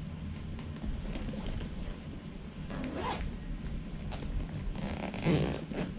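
Zipper of the DJI Mini 2 Fly More Combo shoulder bag being pulled open in two long rasping strokes, one about three seconds in and a louder one near the end.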